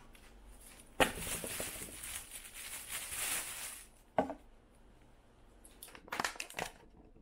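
Thin plastic carrier bag rustling and crinkling for about three seconds as takeout food is pulled out, then a single knock. Near the end, short crackles and clicks from a clear plastic lid on a takeout bowl being handled.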